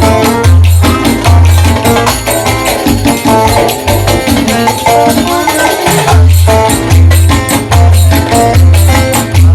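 Instrumental passage of a Turkish folk-pop song: a melody over a pulsing bass beat, with dense tambourine-style zil jingles throughout.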